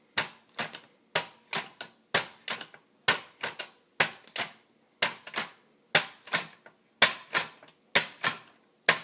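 A russet potato pushed back and forth over a mandolin slicer's blade in its hand guard, slicing thin chips: a steady run of short, sharp scraping clicks, about two a second.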